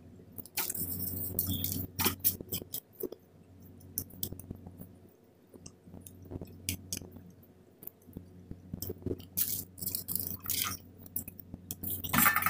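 Close-miked chewing of stir-fried instant noodles: wet mouth noises with many short clicks and irregular noisy bursts, louder stretches about a second in and again around ten seconds. A voice briefly starts at the very end.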